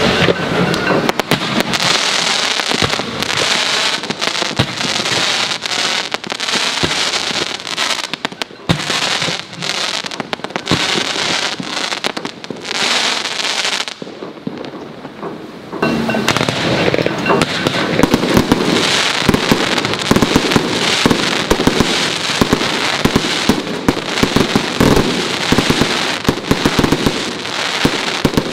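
Aerial fireworks going off in a dense run of crackling and popping, with a brief quieter spell a little past the middle.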